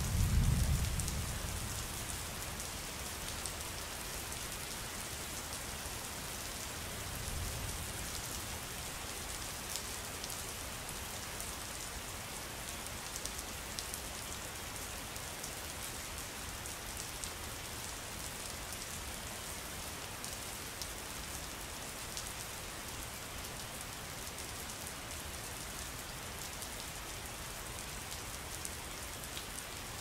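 Steady rain falling, dense individual drops ticking over an even hiss. A low rumble of thunder is the loudest sound right at the start and fades within a couple of seconds, and a fainter rumble comes about seven seconds in.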